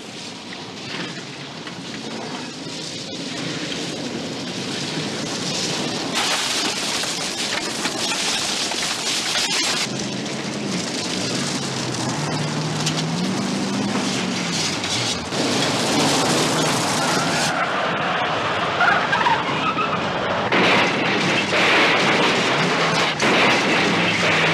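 Two cars, one a first-generation Toyota Soarer, driven flat out: engines running at high revs under a dense rush of tyre and gravel noise, the engine pitch rising and falling as they speed up and ease off. The noise grows louder over the last few seconds and cuts off suddenly at the end.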